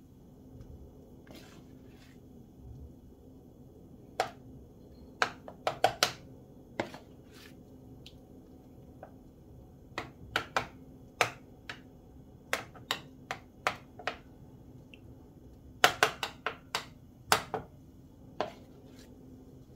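Metal spoon tapping and scraping as thick batter is spooned and spread onto the plates of an electric waffle maker: sharp, irregular clicks in several quick clusters.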